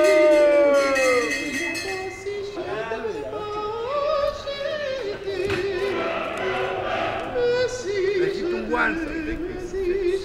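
A voice singing in operatic style, holding long notes with a wavering vibrato that slide up and down.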